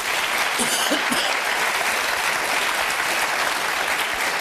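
Studio audience applauding: steady clapping from a large crowd.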